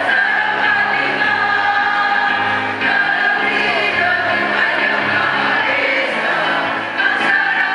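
Choir singing long held chords in several voice parts, with short breaks between phrases about three seconds in and near the end.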